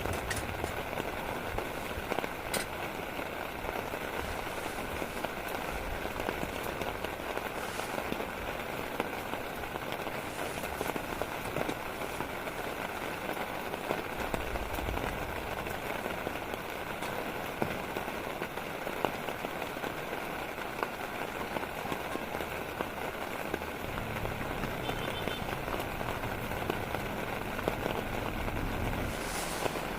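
Steady rain falling, with a dense run of small drop hits that keeps going evenly throughout.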